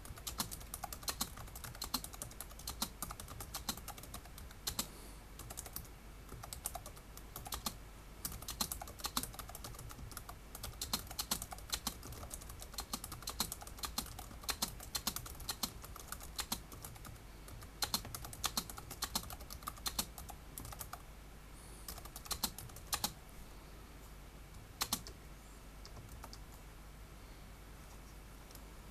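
Fast touch-typing on a Logitech DiNovo Edge keyboard's low-profile keys, a rapid, irregular run of light key clicks at about 65 words per minute. The clicks thin out and nearly stop for a few seconds near the end, with a single keystroke in the gap.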